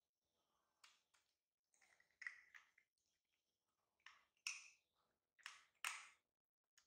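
Quiet wet smacking and clicking sounds, five or so short bursts, as a baby monkey sucks formula milk from a small bottle held to its mouth.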